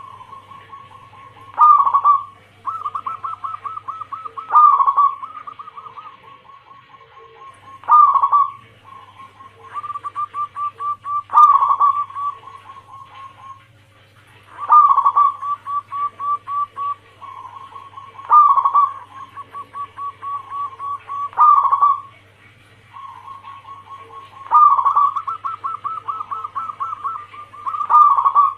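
Zebra dove (perkutut) song: repeated cooing phrases, each a loud accented note followed by a rapid run of short staccato coos, coming about every three seconds. This is the anggungan, the male's advertising song, played as a lure recording.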